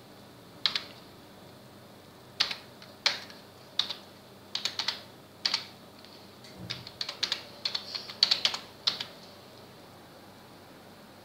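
Keystrokes on a computer keyboard: a handful of separate key presses at first, then a quicker run of taps about two-thirds of the way in, stopping a couple of seconds before the end.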